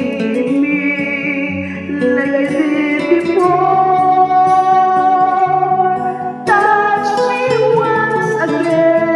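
A woman singing a slow ballad into a handheld karaoke microphone over a recorded karaoke backing track, holding long notes; a new phrase begins a little past the middle.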